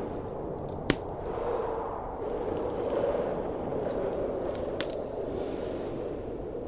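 Wood fire crackling with sharp pops, a loud one about a second in and another near five seconds, over a steady blizzard wind.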